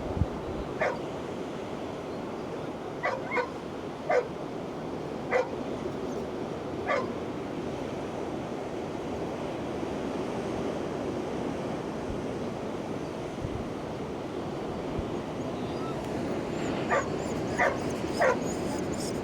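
A dog barking in short, sharp yips: a run of six over the first seven seconds, then three quick ones near the end, over a steady rush of surf.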